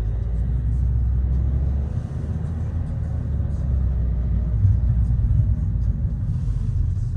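Steady low rumble of a car driving slowly through city traffic, engine and tyre noise, swelling slightly about five seconds in.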